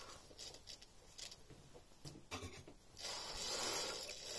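Pleated fabric being handled and dragged across a cutting mat: a few faint ticks and rustles, then a steady rustling swish over about the last second and a half.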